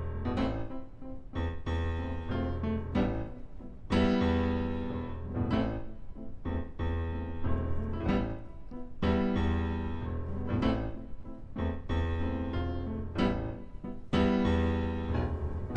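Piano music: chords struck every second or two and left to ring and fade.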